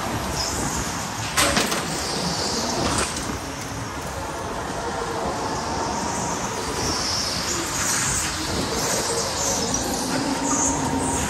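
Electric go-kart driving hard on an indoor track: a steady rush of motor and tyre noise with a faint motor whine, the tyres chirping and squealing in short bursts through the corners, and a knock about a second and a half in.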